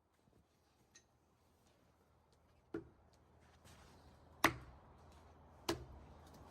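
Three sharp knocks, roughly a second and a half apart, the middle one loudest, with a small click before them and a faint background hiss that rises slowly.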